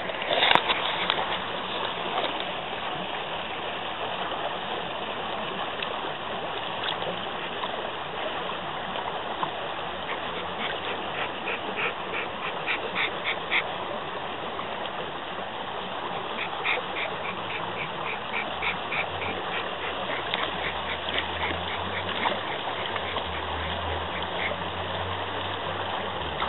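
A shallow creek flowing steadily over rocks, with a dog lapping water in two quick runs of about three to four laps a second, the first about ten seconds in.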